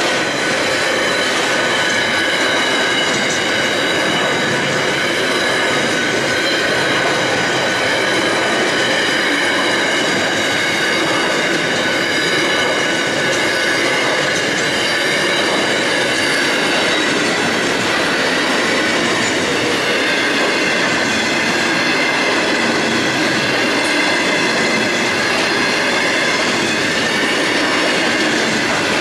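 Container freight train wagons rolling steadily past, with several high steady squealing tones over the wheel noise.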